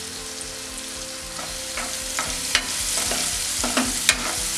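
Halved grapes and red chilli powder sizzling in ghee in a non-stick pan. From about a second and a half in, a metal spatula stirs the mix, scraping and tapping against the pan several times.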